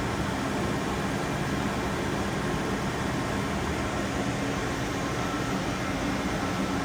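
Steady machine hum with an even hiss, unchanging throughout, with no knocks or starts and stops.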